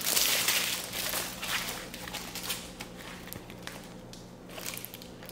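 Clear plastic wrapping crinkling and rustling as a folded black fabric sandbag is pulled out of it and handled, loudest in the first couple of seconds and then dying down to faint handling noises.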